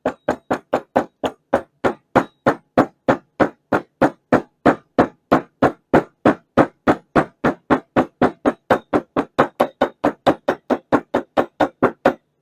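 Hammer tapping a soft (Welch) plug into the body of a Zenith 12613 carburetor, a steady run of about forty sharp, even strikes at roughly three and a half a second, seating and expanding the plug.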